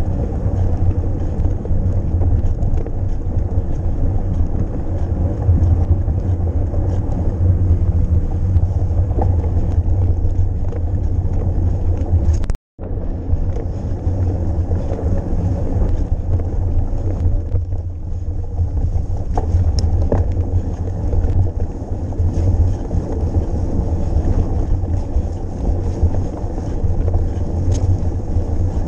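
Steady wind rumble buffeting the microphone of a camera carried on a mountain bike in motion, with faint scattered clicks. The sound drops out for an instant about twelve and a half seconds in.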